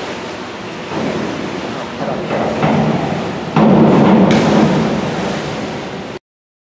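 Springboard dive: a splash as the diver enters the pool about four seconds in, over steady pool-hall noise and spectators' voices. The sound cuts off suddenly near the end.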